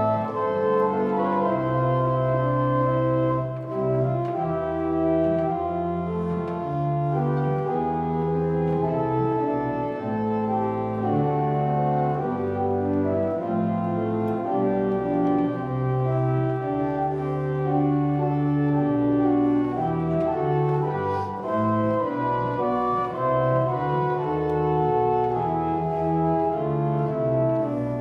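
Church pipe organ playing slow, sustained chords over a moving bass line.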